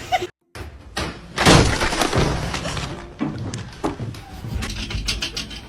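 Doggy-door flap banging and clattering as a dog pushes against it and through it: a loud clatter about a second and a half in, then several lighter knocks.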